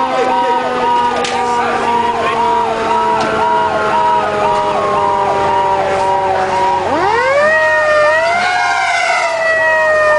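Fire truck sirens heard from inside the cab. One siren's wail slides slowly down in pitch, then sweeps sharply back up about seven seconds in. Under it a second siren repeats a quick yelp cycle about twice a second.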